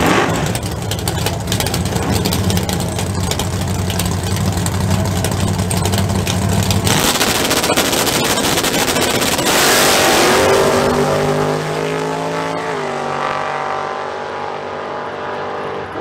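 Plymouth GTX drag car's engine running on the starting line, then launching hard about nine and a half seconds in with a loud surge, and pulling away down the track, its pitch falling with a gear change and fading into the distance.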